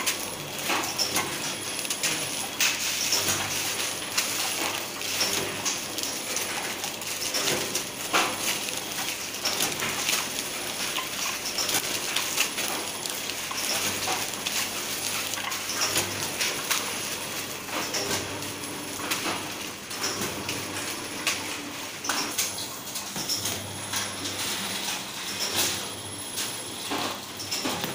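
Four side sealing packaging machine running, with a dense, irregular metallic clicking and clatter over a steady hiss.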